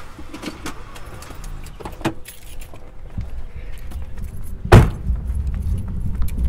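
Car keys jangling and clicking as the driver gets out of a car, then a single loud car-door slam about three-quarters of the way through, the loudest sound.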